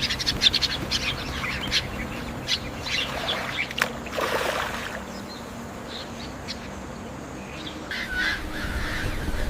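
Rainforest bird chorus: many birds chirping and calling in quick, overlapping notes, joined near the end by lower, repeated squawking calls.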